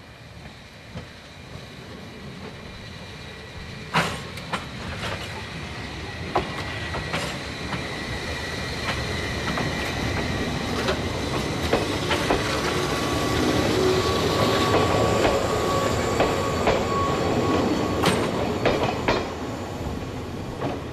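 Former Keihan 3000-series electric train running past close by: a string of sharp clacks from the wheels over the rail joints, with steady high-pitched whining tones. It grows louder as it approaches, is loudest about two-thirds of the way through, then eases off a little.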